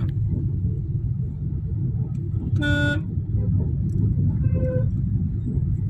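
Steady road and engine rumble heard from inside a car in city traffic, with a vehicle horn honking once briefly about two and a half seconds in and a fainter, higher-pitched horn about a second and a half later.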